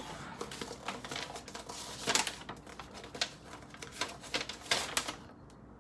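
Sheets of paper being unfolded and handled, rustling with a string of crisp crackles and taps that thin out near the end.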